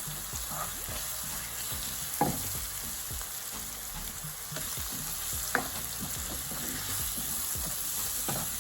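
Chopped seasoning and curry powder sizzling steadily in hot oil in a pot, the curry being 'burned' (fried to cook out its raw taste) before the other ingredients go in. A spoon stirring it scrapes and knocks against the pot a few times.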